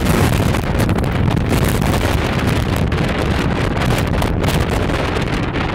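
Strong wind buffeting the phone's microphone: a loud, gusty rumble.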